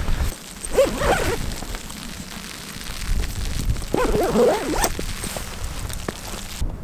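Camera backpack being unzipped and opened on snowy ground, with small handling clicks and wind rumble on the microphone. Two short wavering animal calls sound, one about a second in and a longer one at about four seconds.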